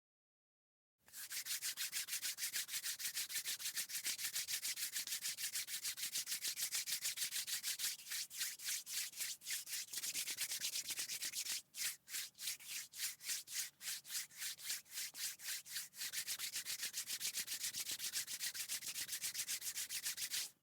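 Hands rubbed together, a dry skin-on-skin hiss in quick, even back-and-forth strokes. In the middle the strokes slow and come apart more, then speed up again before stopping suddenly.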